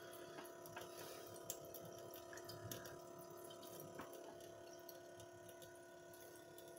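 Faint, steady hum of a small 12-volt water pump running as it circulates water through the jars, with a few light ticks.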